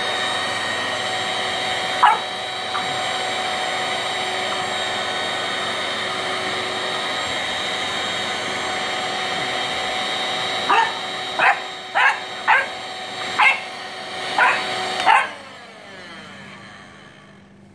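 Red corded stick vacuum cleaner running with a steady whine, switched off near the end and winding down with falling pitch. A French bulldog puppy barks once about two seconds in, then about seven quick barks just before the motor stops.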